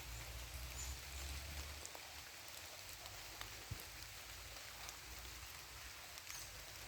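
Faint, steady outdoor hiss with scattered small ticks, like light rain or drips, and a low rumble in the first two seconds.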